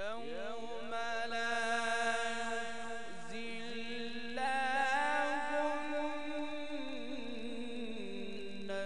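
Solo male voice reciting the Quran in the melodic, drawn-out mujawwad style of tajweed, holding long notes with wavering ornaments. The pitch steps up about halfway through and drops again near the end.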